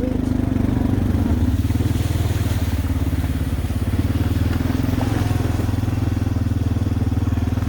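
Quad (ATV) engine running steadily at low, even revs while being ridden along a trail, with a faint brief rush of higher noise about two to three seconds in.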